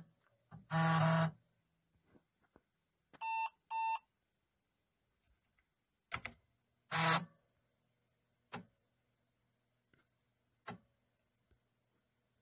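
IBM PC Convertible laptop making electronic beeps from its small speaker: a harsh buzzing tone about a second in, two short clear beeps a little later, and another buzzing tone about seven seconds in. Sharp single clicks come every second or two in between, over a faint steady hum.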